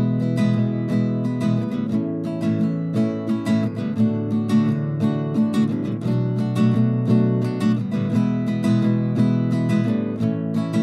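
Music: acoustic guitar being strummed in a steady rhythm.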